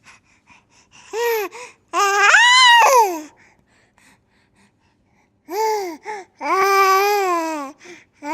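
A baby's high-pitched vocalizing: two pairs of calls, each a short call followed by a long drawn-out one that rises and then falls in pitch, with a pause of about two seconds between the pairs.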